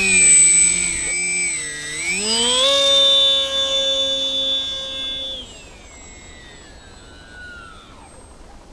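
Polaris RC seaplane's electric motor and propeller whining at full throttle for a takeoff from snow. The pitch climbs about two seconds in and holds steady. After about five seconds it drops in level and glides lower in pitch, fading as the plane flies away.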